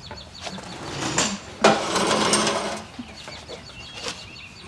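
Stock exhaust system being worked free from under the car: irregular metal scraping, knocking and short squeaks. There is one louder, longer scrape about a second and a half in.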